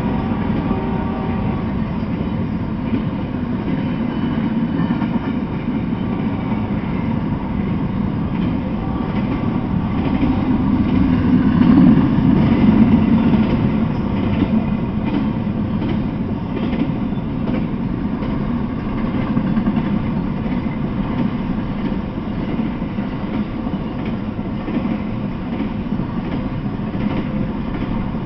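Freight train cars rolling past on the rails, gondolas and then flatcars carrying truck trailers: a steady rumble of wheels on track that swells about twelve seconds in.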